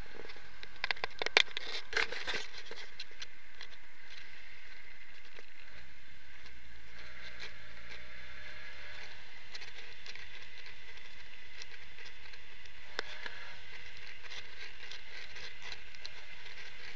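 Triumph Herald 1200 driving: steady road and wind noise with the low hum of its four-cylinder engine, which comes up more clearly about six seconds in. A run of clicks and knocks comes in the first two or three seconds, and one more tick comes a little after halfway.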